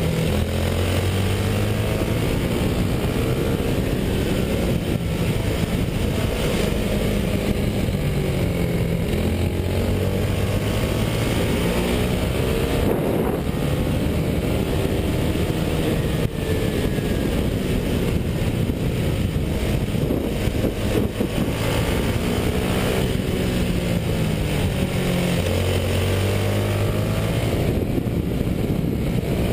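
Racing kart engine heard onboard at close range, its revs rising and falling with the track: the pitch drops low about a second in, again around ten seconds in and near the end as the kart slows for corners, then climbs steadily as it accelerates.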